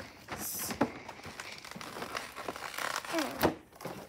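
Cardboard and plastic packaging of a toy box being handled and pried at to get it open: irregular crinkling and rustling with scattered clicks.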